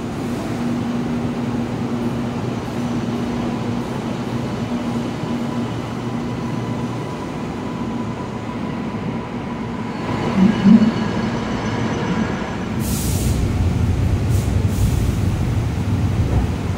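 Shenzhen Metro Line 3 CRRC Puzhen six-car metro train pulling out of the station and running away, its steady hum fading over the first several seconds. In the last few seconds a low train rumble grows louder.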